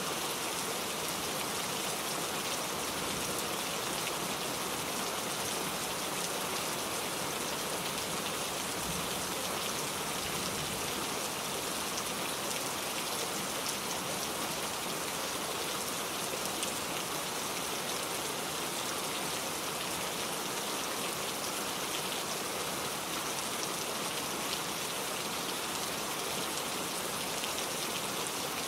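Heavy rain falling steadily and densely, a constant hiss of many drops striking surfaces.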